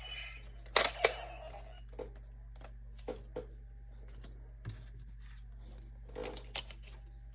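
Hard plastic clicks and taps from handling a Power Rangers Megaforce Morpher toy and its cards: two sharp clicks about a second in, then a few lighter taps scattered through the rest.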